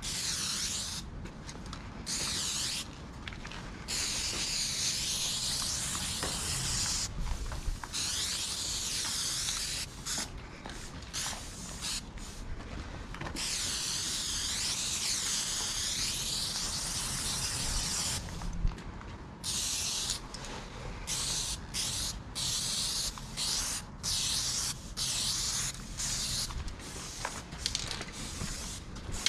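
Aerosol spray paint can hissing in bursts as a graffiti throw-up is painted on a wall: long sprays of several seconds at first, then many short quick bursts in the last third.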